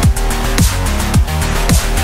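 Electronic music with a deep kick drum hitting about twice a second over a sustained bass line.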